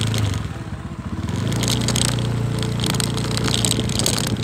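Motorcycle engine running on the move. It drops back and goes quieter about a second in, then picks up again, with scattered crackling over it.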